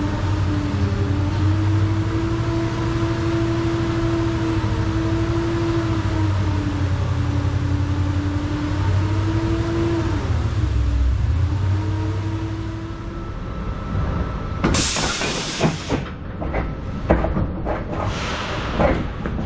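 A forklift engine runs under load as it carries a bundle of strand board into a trailer, its pitch rising and falling as it works. About 15 seconds in comes a loud hiss lasting about a second, then a series of knocks and clatters as the load is set down and shifted on the trailer deck.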